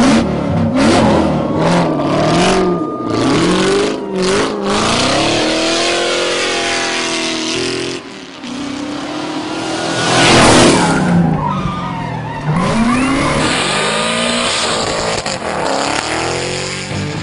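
Ford Mustang engine revving up and down hard while its tyres squeal and skid through drifts. The tyre noise is loudest about ten seconds in.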